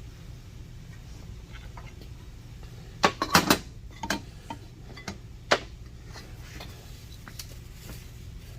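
Hard metal parts clinking as they are handled: a quick cluster of sharp clinks about three seconds in, then single clinks and a few fainter ticks. A low steady hum runs underneath.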